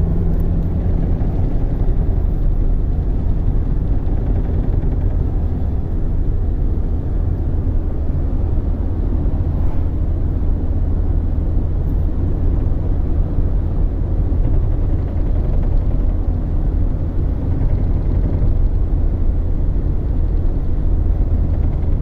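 Cabin sound of a 2005 Saturn Ion's 2.2-litre four-cylinder pulling steadily in fourth gear at about 2,500 rpm, with road noise: a constant low drone. The car shakes with a vibration that the mechanic suspects comes from a motor mount or steering rack bolts left loose after a clutch replacement.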